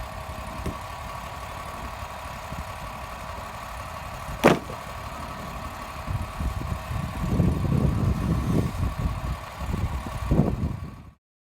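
An engine running steadily, with one sharp clank about four and a half seconds in and heavier, uneven low rumbling over the last few seconds before the sound cuts off suddenly.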